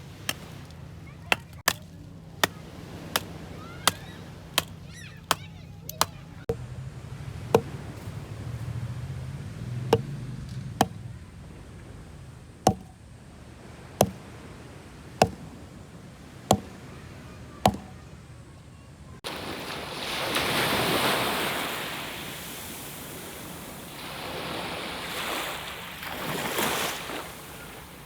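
Repeated chopping with a blade, sharp knocks roughly once a second, stopping about 18 seconds in. A louder rushing noise follows, swelling twice.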